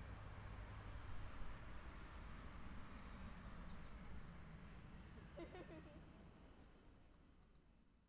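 Faint outdoor ambience: an insect chirping steadily in a high pitch over a low rumble, fading out near the end.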